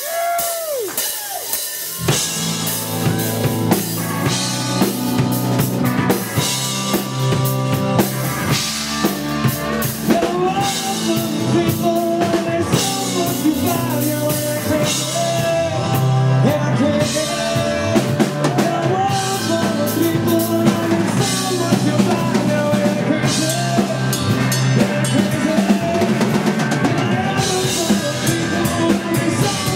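Live rock drum kit played hard in a drum solo, with kick, snare and cymbal hits throughout. Sliding pitched notes in the first couple of seconds give way to steady sustained notes from about two seconds in, as other instruments join the drums.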